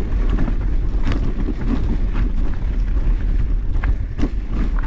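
Mountain bike rolling fast over a rough, rocky trail: a steady low rumble of wind and ground vibration on the microphone, broken by sharp knocks and rattles as the bike hits rocks, strongest about a second in and near four seconds.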